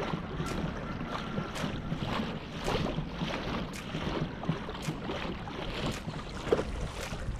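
Wind-driven chop lapping and slapping against a plastic kayak hull about twice a second, with wind buffeting the microphone.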